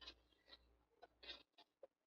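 Near silence with a few faint, short rustles and taps of paper and card being handled on a craft table.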